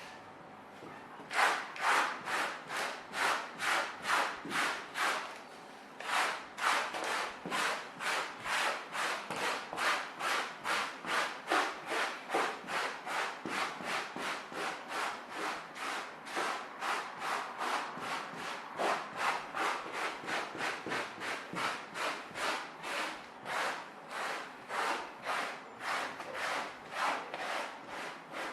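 Mini pet hair remover for car detailing scrubbed back and forth over upholstery in quick rasping strokes, about two to three a second, with a brief pause about five seconds in.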